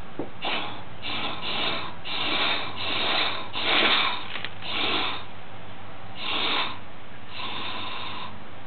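Fuel draining out of the engine's fuel-tank petcock into a paper strainer and funnel, coming in about nine irregular gushing, hissing spurts.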